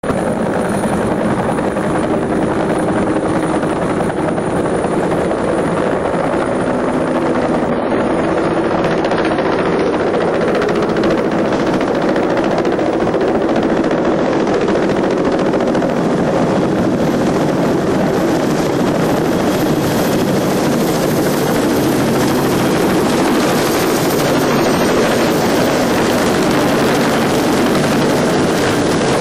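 Helicopter running: a loud, steady noise of turbine and rotor.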